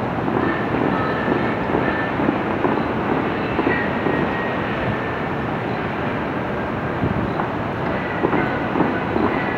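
Steady rushing and rumbling outdoor noise from high above the Bellagio fountain: its water jets spraying, blended with city traffic, with a few faint brief tones now and then.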